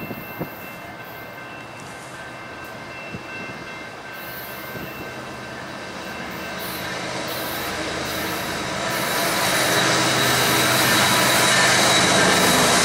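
A Canadian National freight train led by two GE Evolution Series diesel locomotives (ES44AC and ET44AC) approaching. The engine rumble and rail noise grow steadily louder from about six seconds in, with a thin high steady tone over the top near the end.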